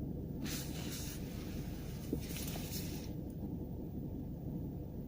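Turbocharged 1.4 TSI (CAXA, 122 hp) four-cylinder petrol engine running, heard from inside the car's cabin as a steady low drone. From about half a second in until about three seconds a hiss rises over it. The recording was made to catch an extraneous noise the owner cannot account for.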